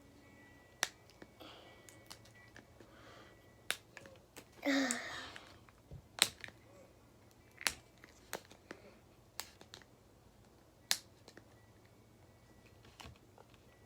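Small plastic toy packaging being handled and opened: scattered sharp clicks and taps, with one short, noisier burst about five seconds in.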